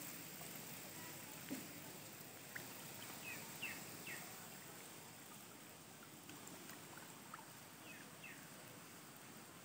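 Faint outdoor ambience: a low, steady hiss of shallow water with a few short, falling bird chirps, a cluster about three to four seconds in and another near the end.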